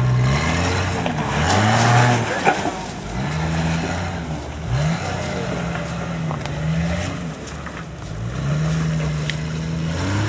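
Jeep Cherokee XJ engine revving up and down again and again as the throttle is worked to crawl over rocks, with a sharp knock about two and a half seconds in.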